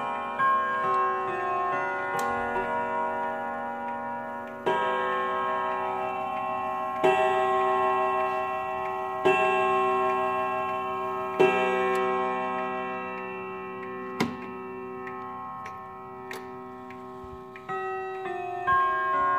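Hermle triple-chime wall clock's chime rods ringing: a few struck notes, then four heavier strokes about two seconds apart whose tones ring on over each other, and more notes near the end, with the movement ticking beneath.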